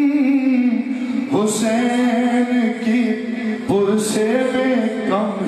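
Man singing a manqabat into a microphone in long, drawn-out notes, his voice alone. New phrases begin about a second and a half in and again near four seconds.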